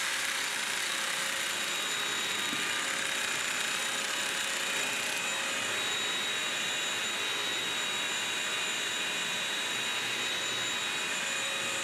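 BISSELL Crosswave wet/dry vacuum running steadily, a motor whine holding one pitch throughout.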